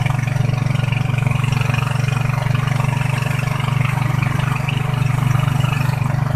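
A vehicle engine running steadily with a loud, unchanging low hum.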